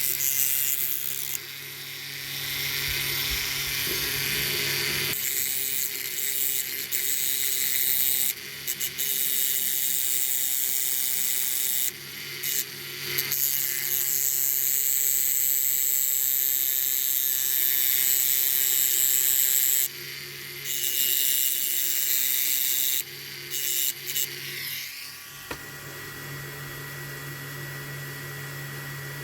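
High-speed rotary tool grinding the head off a pin or rivet on a diecast metal toy, in stretches with short breaks. It stops about 25 seconds in, leaving a quieter steady hum.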